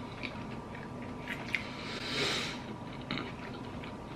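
People chewing and biting chicken nuggets close to the microphone, with small wet clicks of mouth and food, and a brief soft rush of noise about halfway through.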